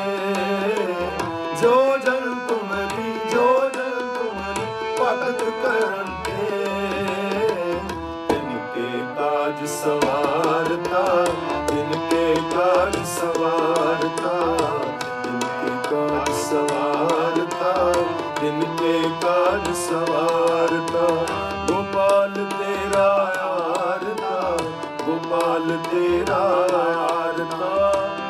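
Live Sikh kirtan: a sung hymn over harmonium, with a tabla keeping a steady beat.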